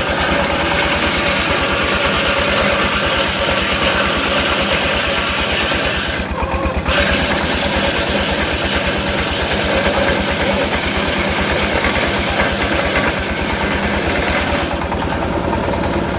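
Engine of a circular sawmill running steadily with an even low pulsing, under a loud hiss that drops away briefly about six seconds in and again near the end.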